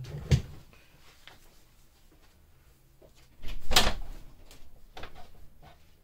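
A sharp knock, then about three and a half seconds in a louder clatter lasting under a second, followed by a few light knocks: someone moving about a small room away from the bench, handling a door or cupboard.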